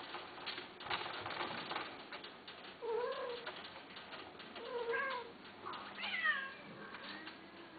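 A white long-haired Persian cat meowing three times, at about three, five and six seconds in; the third call is higher and falls in pitch. Light scuffling comes before the calls.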